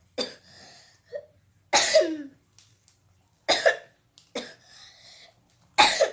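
A sick child coughing, about five harsh coughs spaced roughly a second or so apart.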